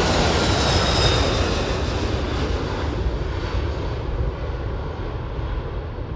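Boeing 747-400 freighter's four turbofan engines at takeoff thrust as it climbs out just after liftoff: a heavy jet rumble with a faint whine on top early on, steadily fading and losing its high end as the aircraft climbs away.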